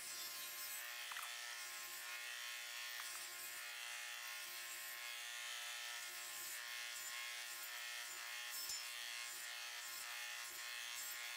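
Table saw running steadily with a low hum while its blade trims the edge of a round blank fed under a horizontal fence, with a few faint knocks.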